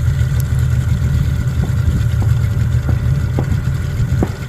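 Boat motor running steadily under way, a loud low rumble with a few faint knocks over it.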